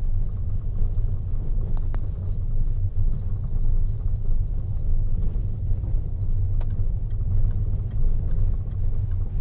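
Car cabin noise while driving: a steady low rumble of engine and tyres on the road, with a couple of faint clicks.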